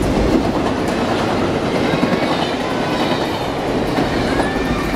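Amtrak passenger train running through at speed, its cars rolling past close by with a steady loud rush of wheels on the rails.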